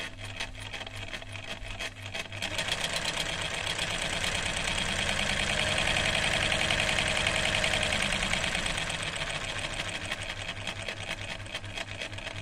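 Chaika 144A sewing machine's electric motor and needle mechanism running on the first switch-on after the repair: a fast, even rattle over a steady motor hum. It speeds up about two seconds in, is loudest in the middle, and eases off a little towards the end as the pedal is let up.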